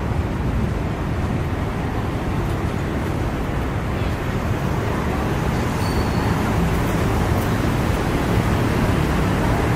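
Steady road traffic noise from vehicles passing on the street.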